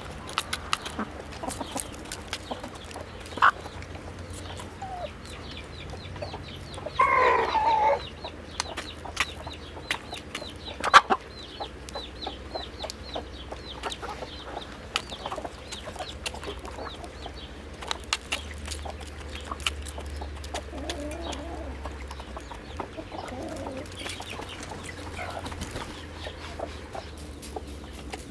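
A flock of domestic chickens clucking at feeding time, with one louder, longer squawk about seven seconds in. Many small taps and clicks run through it.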